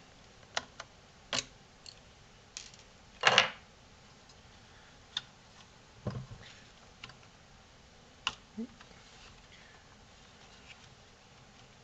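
Plastic casing of a variable frequency drive being worked loose by hand: scattered light clicks and knocks, with one longer, louder scrape a little over three seconds in.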